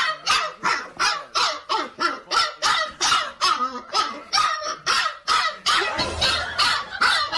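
Puppy yapping over and over in short, high barks, about three a second.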